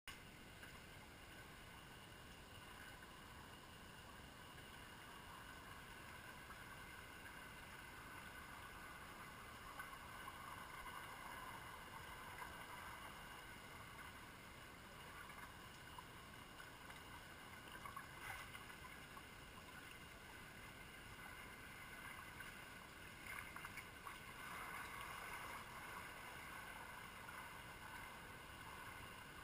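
Faint, steady underwater hiss of a swimming pool picked up through an underwater camera, with a few brief louder swells of water noise, the largest about two-thirds of the way through and near the end.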